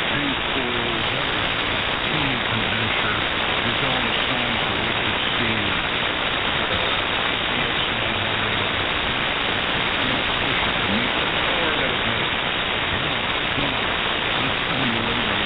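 Ham radio receiver on the 75-metre band in single sideband mode putting out a loud, steady hiss of static, with faint wavering low tones sliding up and down beneath it. The noise is local radio-frequency interference swamping the band.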